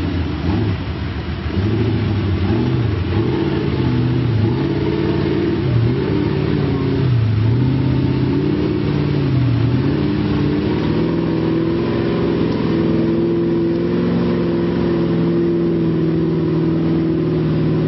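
Lifted mud truck's engine revving up and down several times, then held at steady high revs as it strains to pull a stuck truck out of a mud hole, its tyres spinning in the mud.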